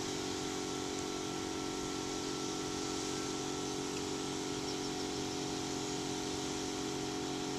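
Steady, unchanging machine hum: a cluster of low steady tones with a faint hiss over it.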